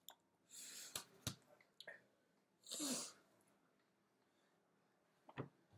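Two short breathy puffs of air from a person, one about half a second in and one about three seconds in, with several light clicks and taps of small makeup items being handled.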